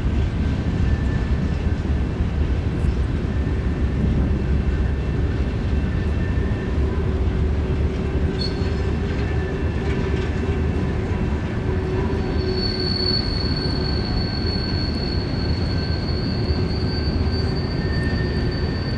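Freight train cars rolling past with a steady low rumble and thin, high wheel squeals. A louder, higher squeal sets in about two thirds of the way through and holds.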